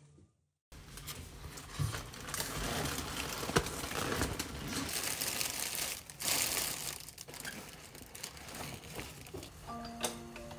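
Thin plastic packaging on bagged salad greens crinkling and rustling as it is handled and unpacked, starting after a short silent gap.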